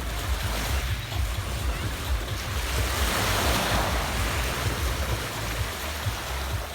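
Adriatic Sea waves washing onto a pebble beach, one wash swelling louder midway through, with wind buffeting the microphone.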